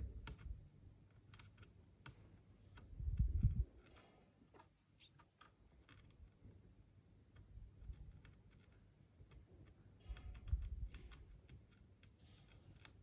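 Small metal tool ticking and clicking against a motherboard CPU socket and its metal frame while bent socket pins are worked straight, with low rumbles of hand handling; the loudest is a short rumble about three seconds in.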